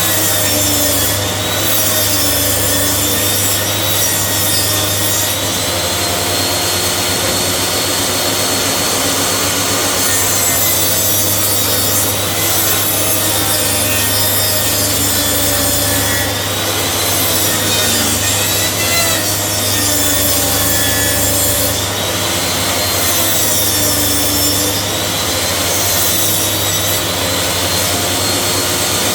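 Power saw cutting through timber, running continuously with its pitch dipping and rising slowly as the load changes.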